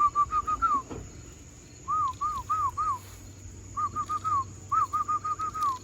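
A person whistling a feed call to pigeons: short notes that rise and fall, in quick runs of four to six, repeated four times.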